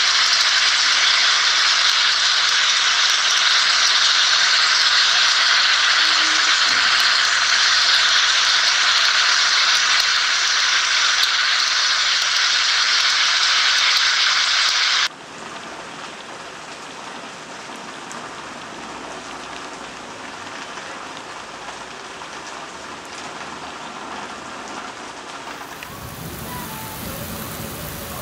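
Heavy rain falling, a loud steady hiss that drops suddenly to a much softer rain sound about halfway through. Near the end a low rumble joins it.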